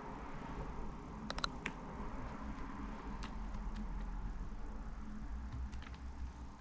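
Keys on a Logitech G213 membrane gaming keyboard being pressed: a quick run of a few key clicks about a second and a half in, then single key presses scattered at uneven intervals, over a low steady hum.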